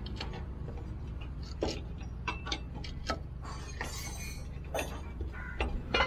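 Light, irregular metallic clicks and clinks of a spanner, nuts and washers as the mounting bolts of a truck lift-axle air bellows are fitted, over a low steady hum.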